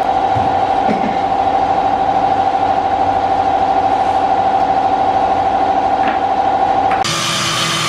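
Homemade table saw's motor and blade spinning freely with a steady high whine. About seven seconds in, the sound changes abruptly to a broader, noisier whir with a lower tone.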